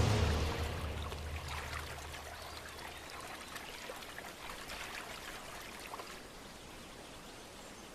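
Faint trickling water, an even patter of fine drips and ticks. A louder sound fades out over the first second or two.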